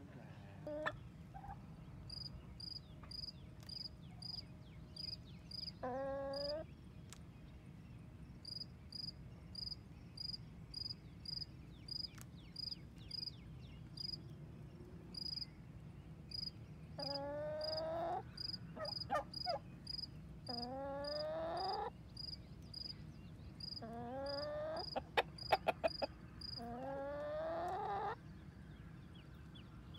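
Backyard chickens calling: about five long, drawn-out calls that rise in pitch, each lasting a second or so, bunched in the second half. A steady high chirping runs under them, about two chirps a second, and a few sharp clicks come near the end.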